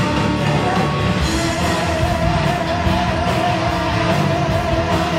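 Heavy metal band playing live: distorted electric guitar, bass and drums with steady cymbal hits. A long wavering note is held from about a second and a half in.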